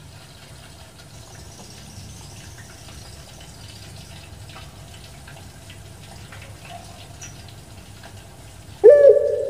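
A caged puter pelung (Barbary dove) starts its call near the end: a loud cooing note that sweeps quickly upward and then holds steady. Before it there is only a faint room background with light ticks.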